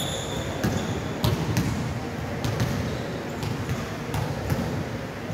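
Basketballs bouncing on an indoor court floor, an irregular run of thuds and knocks with players' footsteps among them.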